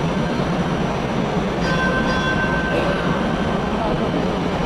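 TTC Flexity Outlook streetcar running through the underground station loop, a steady rumble of motors and wheels on rail. A little under two seconds in, a high-pitched tone sounds for about a second.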